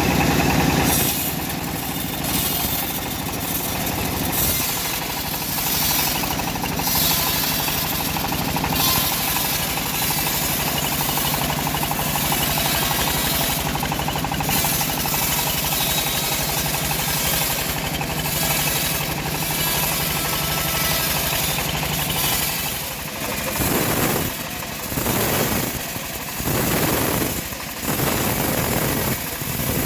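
Homemade engine-driven bandsaw mill running and cutting through an old teak log: a steady engine hum under a continuous rasping blade noise. In the last several seconds the sound rises and falls in uneven swells.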